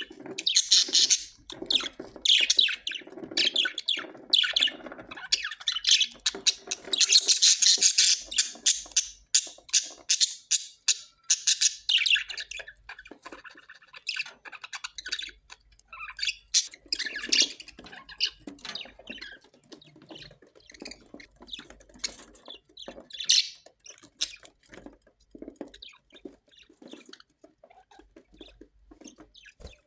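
Australian parrots squawking and chattering in a dense run of rapid calls for the first dozen seconds, then quieter, scattered chirps and squawks with one louder call a little past the middle.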